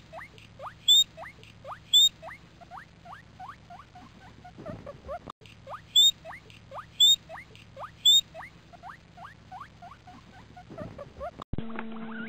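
Guinea pigs squeaking: a run of short rising squeaks, about three a second, with louder, higher squeaks about once a second in groups of three. Near the end the sound switches to a steady low hum under more rising squeaks.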